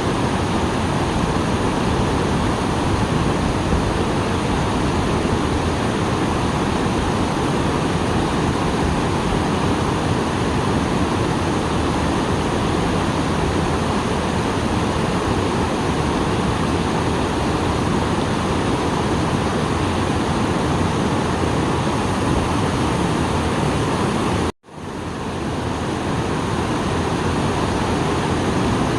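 Small waterfall swollen after rain: a steady, loud rush of falling water. It cuts out abruptly about three-quarters of the way through and fades back in over about a second.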